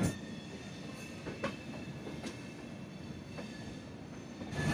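Passenger train's coach wheels rolling on the track, with a few scattered sharp clicks over rail joints and points and a faint steady high whine.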